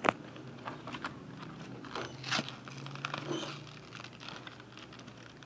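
Plastic packaging crinkling and small plastic toy pieces clicking as they are handled and lifted out of the box, with a sharp click at the start and a louder crinkle a little over two seconds in.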